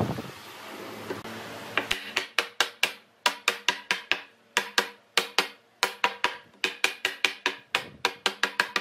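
Wooden mallet knocking a round wooden tabletop down onto the pegs of its base to seat it. The knocks start about two seconds in and come in quick runs of about four a second, with brief pauses between runs.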